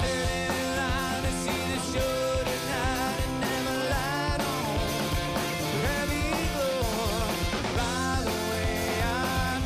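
A live rock band playing: a male lead voice sings over electric guitar and drums with a steady beat.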